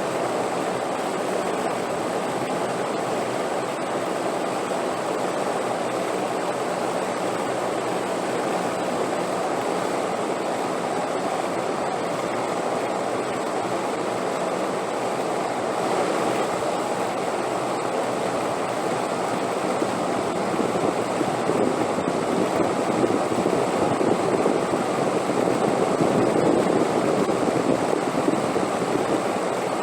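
Wind blowing in a steady rushing haze, swelling louder in gusts about halfway through and again over most of the second half.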